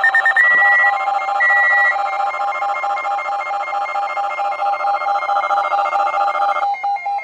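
Weather alert radio alarms sounding together: a loud steady multi-tone alert tone overlaid with rapid electronic beeping, about four or five beeps a second. The steady tone cuts off about a second before the end while the beeping carries on.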